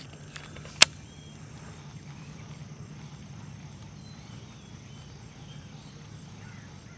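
A sharp click about a second in, with a fainter one just before it, from a Lew's Speed Spool baitcasting reel as the retrieve begins. After it comes steady low outdoor ambience with faint bird chirps and insects.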